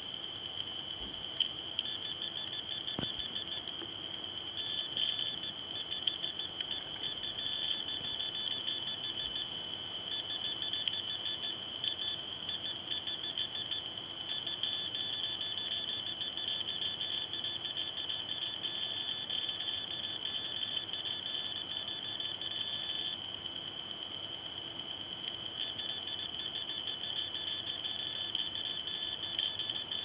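Electrosmog meter's audio output sounding a steady high-pitched buzzing tone, overlaid with stretches of rapid pulsed chatter that start and stop, Morse-like: the meter rendering a pulsed radio signal it is picking up in the 300 MHz–3 GHz band.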